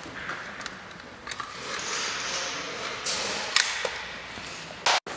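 Players' footsteps and gear rustling on a hard warehouse floor, with scattered light clicks and a sharper click about three and a half seconds in. Near the end a short noisy burst cuts off abruptly.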